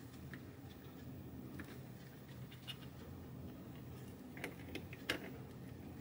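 Faint, scattered clicks of needle-nose pliers gripping and bending a component lead on a copper-clad board, over a low steady room hum; the sharpest click comes about five seconds in.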